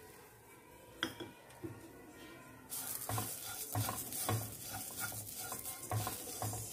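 A spatula stirring and scraping sesame seeds and grated coconut as they dry-roast in a hot kadai, with a light sizzle. The stirring starts a little under three seconds in, about two to three scrapes a second, after a quiet start with a single light click.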